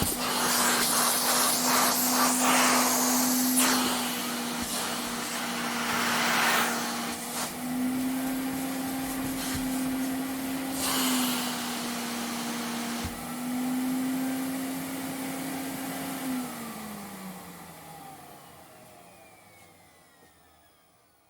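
Vacuum cleaner running, a steady motor whine under rushing air noise that swells and eases. About 16 seconds in it is switched off: the motor pitch falls as it spins down and the sound fades away.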